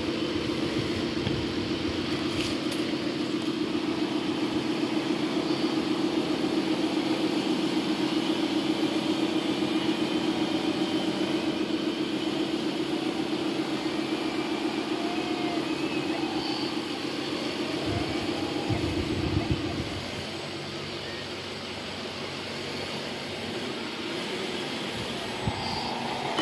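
Radio-controlled model articulated dump truck running as it climbs with a load, a steady drone that eases off about twenty seconds in.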